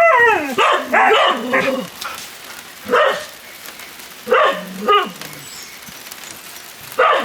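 Dogs barking excitedly at a visitor's arrival: a quick run of barks at first, then a few single barks spaced apart, with steady rain falling behind.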